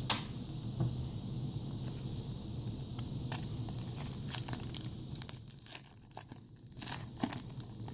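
Trading-card pack wrapper crinkling and tearing as it is handled and opened, in irregular short crackles.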